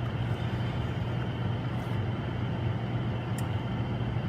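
A steady low machine hum with an even hiss over it, unchanging throughout, and a couple of faint light clicks.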